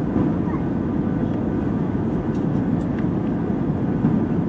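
Steady, deep cabin noise of an airliner heard from inside at a window seat: engine and airflow noise during a low descent on approach with the flaps extended.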